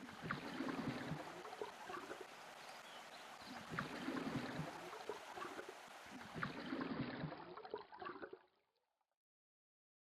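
Faint water lapping and gurgling, swelling three times a few seconds apart, then cutting off near the end.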